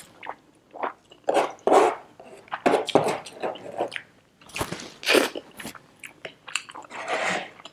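A person chewing mouthfuls of chicken biryani eaten by hand, heard close up as irregular bursts of wet chewing and biting sounds.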